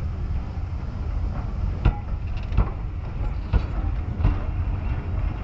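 BR Mark 1 passenger coaches rolling slowly past close by: a steady low rumble with a sharp clunk from the wheels on the track about once a second.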